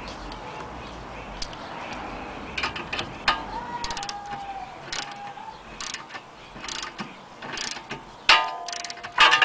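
Tie rod end puller being tightened with a ratchet: scattered ratchet clicks and a squeak of metal under load for a couple of seconds. About eight seconds in comes a sharp metallic crack with ringing, then a second one just before the end, as the outer tie rod end's tapered stud breaks free of the steering knuckle.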